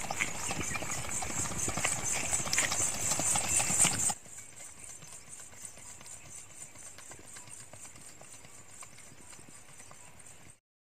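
Hoofbeats of a ridden horse on dry, packed dirt, a quick run of strikes. The sound is louder for the first four seconds, drops abruptly to a fainter level, and cuts out entirely just before the end.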